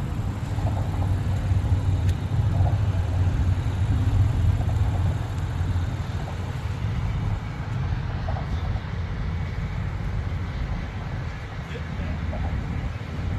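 Car driving at a steady pace: a continuous low rumble of road and engine noise.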